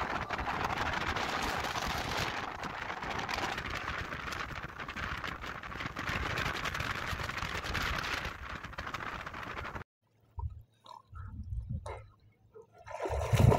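Steady rush of water around a moving boat, which cuts off suddenly about ten seconds in. Then faint, scattered splashing of dogs wading in shallow lake water.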